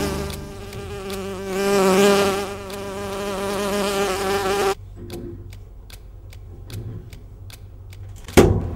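An insect buzzing with a wavering pitch, cutting off suddenly about halfway through. Then comes a steady ticking, about three ticks a second, and a single sharp hit near the end.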